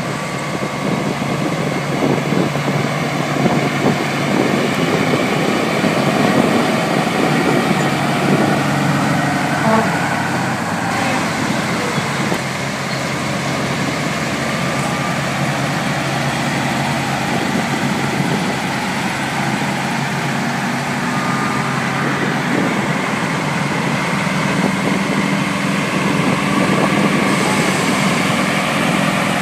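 Diesel engines of big-rig trucks, among them a Kenworth and a Peterbilt prime mover, running steadily as the trucks drive slowly past one after another; the deep engine note changes as one truck gives way to the next.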